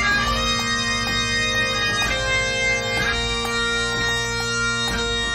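Great Highland bagpipe playing a tune: a melody on the chanter over the drones' steady chord, with quick grace notes between the melody notes.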